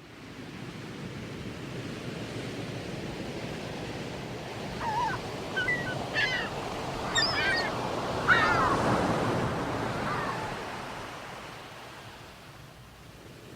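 Sea waves washing on a shore as a steady rushing noise that swells and then eases off. Over it, between about five and ten seconds in, comes a string of short, sweeping bird calls.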